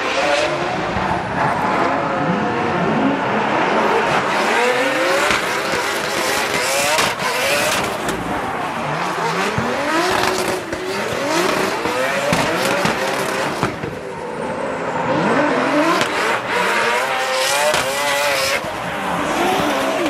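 Two drift cars in a tandem drift: their engines rev hard over and over, the pitch repeatedly climbing and dropping, over a steady hiss of spinning, squealing tyres.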